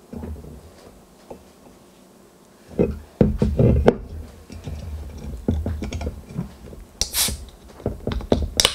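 Hands handling an aluminium soda can on a wooden table: knocks and rubbing as it is gripped, then near the end the ring-pull is lifted and the can cracks open with a sharp snap.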